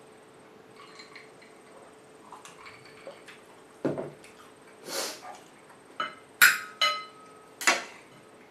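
Crockery knocking and clinking on a table: a handful of separate sharp knocks in the second half, the loudest ones ringing briefly.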